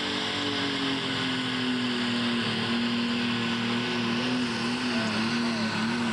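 Pro stock pulling tractor's diesel engine running flat out under full load down the pulling track, a steady, loud engine tone; near the end the pitch wavers up and down as the load changes.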